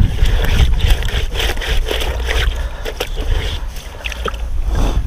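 Wind buffeting the microphone with a steady low rumble, over a run of small knocks and clicks.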